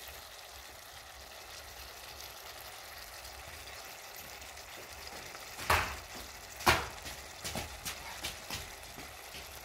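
Goat liver stew simmering in an open pan, a steady bubbling hiss. About five and a half seconds in come two sharp clicks a second apart, then a few fainter ticks.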